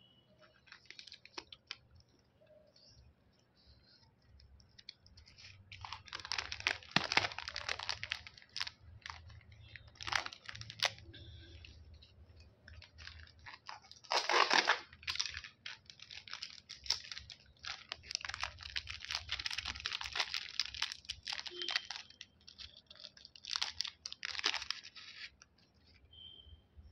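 Candy packaging being handled and opened: wrappers crinkling and tearing in several crackly bursts, the loudest about halfway through.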